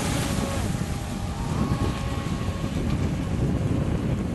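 Wind buffeting the microphone, the loudest sound, with the faint steady whine of two radio-controlled V-hull model speedboats running fast across the water; the whine fades after about two seconds.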